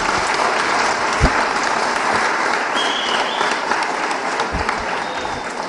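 Audience applauding, a steady wash of clapping that tails off near the end.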